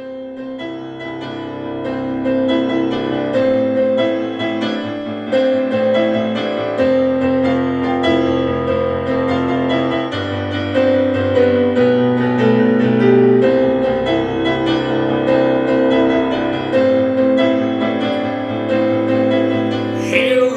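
Intro music: piano or electric keyboard playing a steady, repeating chord pattern over a sustained bass line, fading in at the start.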